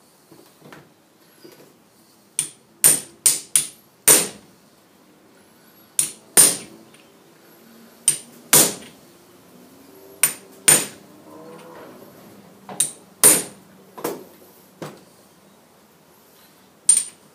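Hammer tapping a machined metal driver to push an oil seal the last millimetre or so into its bore in the chuck mount housing. About fifteen sharp, ringing metallic taps, often in quick pairs, with short pauses between.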